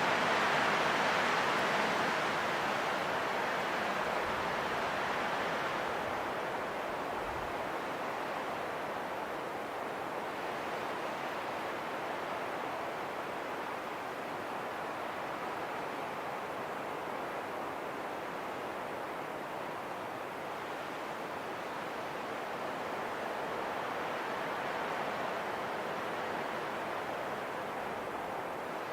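Wind blowing in a steady rushing hiss. It swells at the start, eases off over the next few seconds, then swells again slightly near the end.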